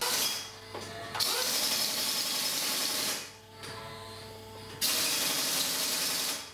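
Compressed air hissing from a workshop pneumatic tool in two long bursts over a steady mechanical hum. The first starts suddenly and eases off about halfway. The second starts abruptly later and stops shortly before the end.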